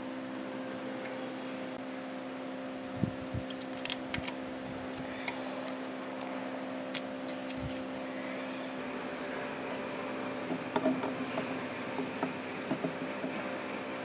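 Scattered light metallic clicks and taps of a small pick and fingers working in the bearing bore of a brake lathe's spindle housing, over a steady hum. The clicks come in two clusters, one a few seconds in and another after about ten seconds.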